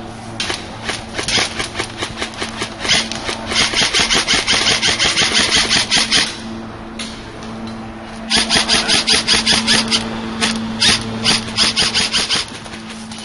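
Airsoft rifle firing: a few separate shots, then two long full-auto bursts of several seconds each, with BBs going out in a fast even stream.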